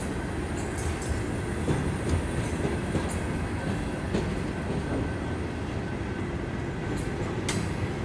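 Freight train of steel open-top hopper cars rolling past: a steady rumble of wheels on rail with clicks and knocks at irregular intervals.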